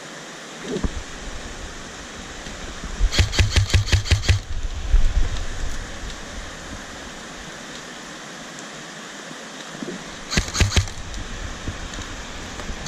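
Airsoft gun firing two rapid strings of shots, about seven a second: one a few seconds in and a shorter one near the end, over a steady rushing background.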